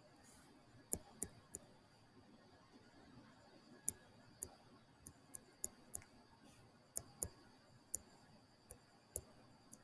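Irregular sharp clicks, about fifteen of them and several in quick pairs or threes, from the mouse or stylus used to write by hand on the screen with a pen annotation tool.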